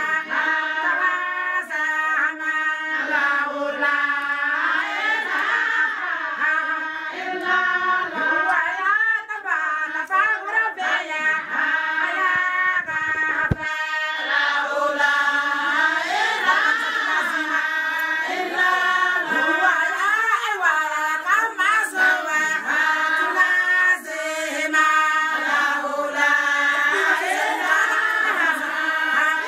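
Group of women singing together, one continuous song with many voices.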